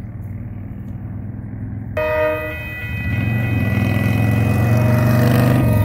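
Union Pacific diesel locomotive's air horn starts sounding about two seconds in, a steady multi-note chord, blown for the road crossing ahead. A road vehicle passes close by over it, its noise swelling to the loudest point and falling away sharply just before the end, over a low rumble throughout.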